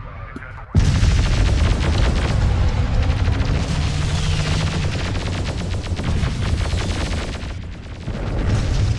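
Battle sound effects: rapid, dense gunfire over a deep explosive rumble, starting abruptly about a second in, easing off shortly before the end, then building again.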